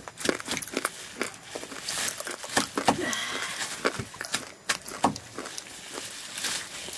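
A large knife chopping through a pile of leafy greens on a plastic sheet: an irregular run of short cutting strokes.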